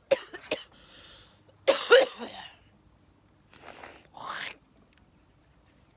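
A woman coughing hard: two short sharp coughs, then a louder, harsh cough about two seconds in, followed by a rasping breath. It is a smoker's cough after smoking cigarette after cigarette.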